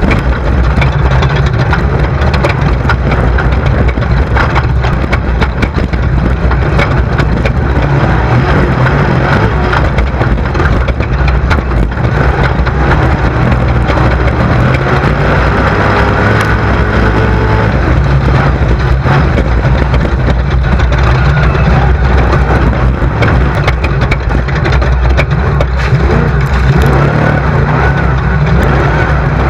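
Off-road desert race buggy driving hard over rough terrain: the engine runs loud and steady under a constant rattling clatter of the chassis and stones, with a couple of revs in the middle.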